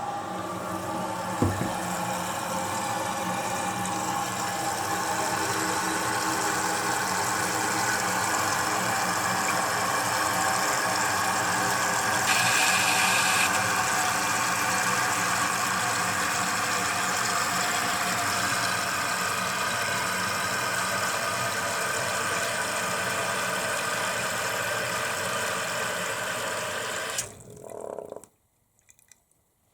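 Mansfield toilet tank refilling: the fill valve hisses and hums steadily as water runs into the tank, then shuts off suddenly near the end as the tank reaches its full level.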